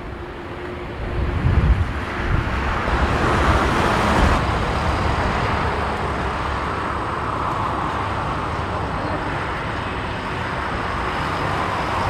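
Jet engines of a Boeing 747-400 freighter, a broad roar that swells to a peak about four seconds in, then settles into a steady rumble. Wind buffets the microphone in the first couple of seconds.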